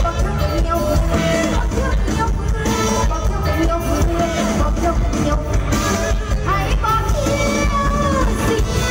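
Live Thai Isan band music with singing.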